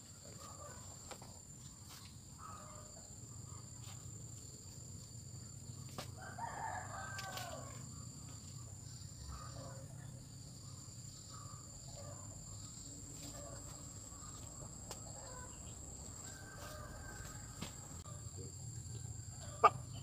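A rooster crowing once, a bending call of about a second and a half, about six seconds in, with fainter calls later.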